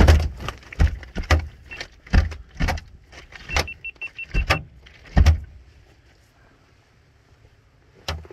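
Large blue catfish thrashing in a landing net on a boat deck, its body and tail slapping the deck in a run of loud, irregular thumps for about five seconds, then one more thump near the end.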